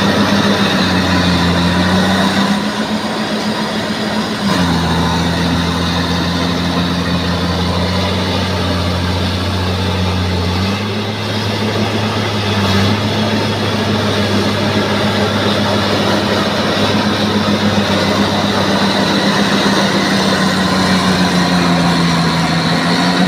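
Bulldozer's heavy diesel engine running steadily. Its note drops about a second in and again near five seconds, then rises back around eleven seconds.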